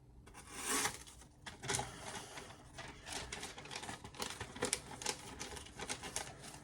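Freshly sharpened kitchen knife cutting through paper in a series of short, crisp rustling slices, testing the edge straight off a 3000-grit stone without stropping.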